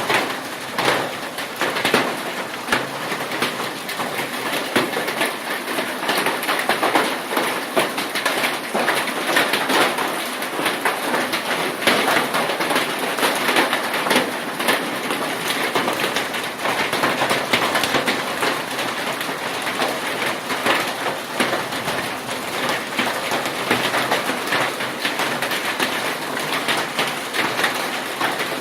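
Heavy thunderstorm rain falling hard, a steady, dense rush of drops striking a surface with many sharp individual hits.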